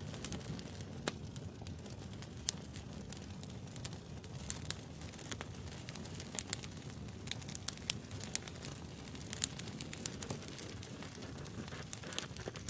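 Wood fire burning, with many sharp, irregular pops and crackles over a steady low rumble of the flames.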